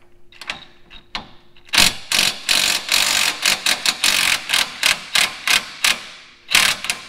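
Hand ratchet wrench clicking on the 19 mm lower strut bolt. A few light clicks, then from about two seconds in, quick repeated bursts of ratchet clicking, a brief pause, and another burst near the end.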